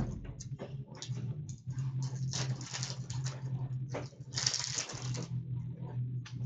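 Trading cards and their packs being handled: a quick, irregular run of clicks and papery rustles, with a couple of longer rustles about two and a half and four and a half seconds in, over a low steady hum.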